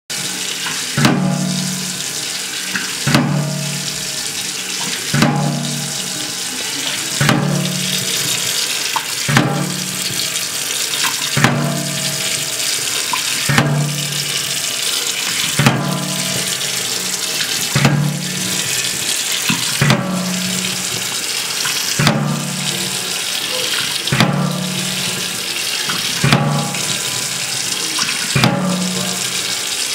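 Tap water running steadily onto a metal baking tray balanced in a steel kitchen sink. The tray rocks and knocks against the sink about every two seconds, each knock followed by about a second of low sound as the water spills, over and over without stopping.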